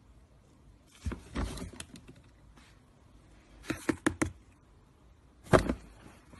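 Plastic swing lid of a bin knocking and clattering as a cat inside pushes it open and lets it swing shut: a couple of knocks about a second in, a quick run of taps around four seconds, and a sharper knock near the end.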